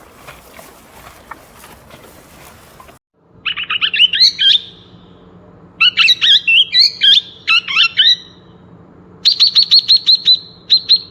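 A songbird singing in three bouts of rapid, repeated chirping notes, starting about three seconds in after a faint noisy stretch with a few clicks.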